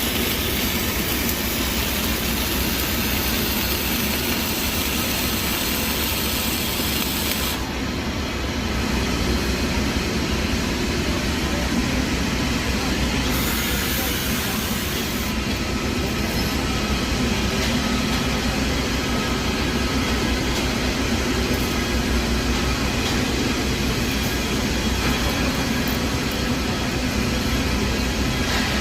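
Electric arc welding a fillet weld: a steady, continuous crackling hiss from the arc; its sharpest top end falls away about a quarter of the way through.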